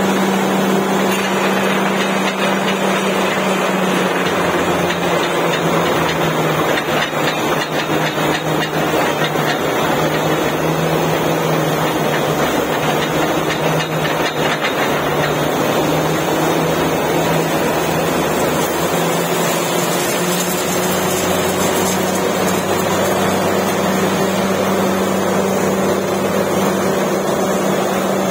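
Truck-mounted borewell drilling rig and its diesel air compressor running steadily, a constant low hum under a loud rush of compressed air blowing water and cuttings up out of the borehole.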